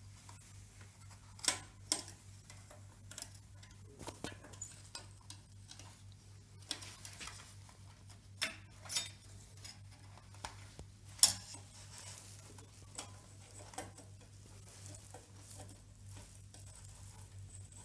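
Scattered light clicks and taps of small metal and plastic parts being handled as a steel plate is fitted to a replacement espresso-machine display, with the sharpest click about two-thirds of the way through. A low steady hum sits underneath.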